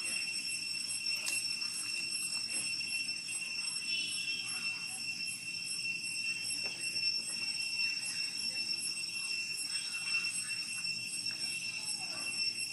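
Steady, high-pitched insect drone: one shrill, unbroken tone with a faint pulsing, with a few faint short squeaks over it.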